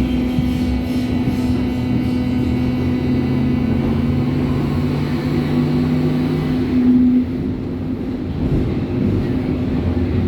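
Berlin U-Bahn H01 train running, heard from inside the car: a steady rumble and hum from the running gear and traction equipment, with several higher steady tones that fade out about seven seconds in.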